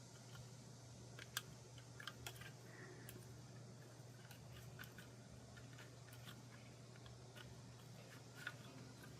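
Quiet handling of small items: scattered light clicks and taps at irregular moments, the sharpest about a second and a half in and near the end, over a low steady hum.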